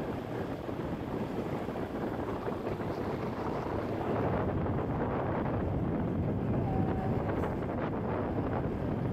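Wind rushing over the microphone of a moving motorcycle, mixed with road and riding noise, a little louder from about four seconds in.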